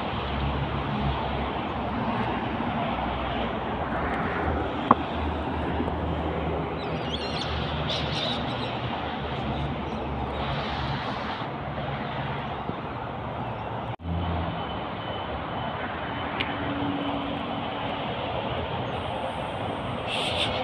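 Steady vehicle and traffic rumble with a low engine hum, broken by a brief dropout about fourteen seconds in.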